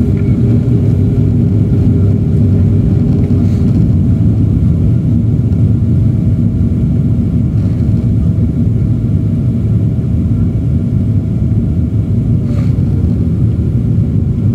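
Steady cabin roar of a Boeing 777-300ER on approach, heard from a window seat: engine and airflow noise with faint steady engine tones above it. One of the tones fades away about twelve seconds in.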